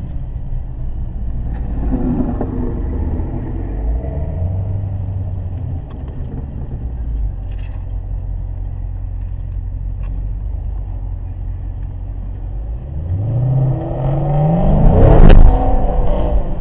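Dodge Challenger Widebody's Hemi V8 running at low speed with a steady low drone, heard from inside the cabin. Near the end it revs up as the car accelerates, loudest with a single sharp knock at the peak.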